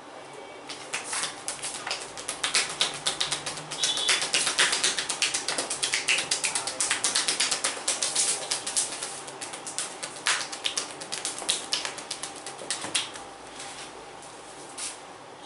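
Hands slapping and chopping rapidly on a bare back in percussive massage strokes: a fast run of sharp slaps, several a second, thinning out near the end.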